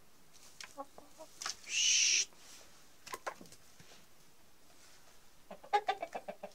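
A chicken gives one short, high squawk about one and a half seconds in, then a quick run of clucks near the end, with a few light clicks between.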